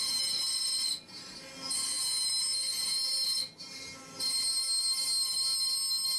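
CNC router spindle cutting wood with a small bit: a high-pitched whine of steady pitch that comes in spells of one to two seconds, broken by short quieter gaps about a second in and about three and a half seconds in.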